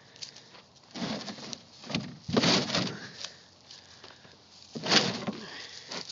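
Bull nosing and rubbing its head in dry grass and dirt at close range: a few rough rustling bursts, the loudest about two and a half seconds in and again near five seconds.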